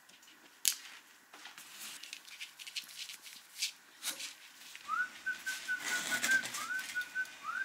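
A dog whining: a string of short, high, even-pitched whines, each sliding up at the start, in the second half. Before that come scattered clicks and rustles, the loudest a sharp click about half a second in.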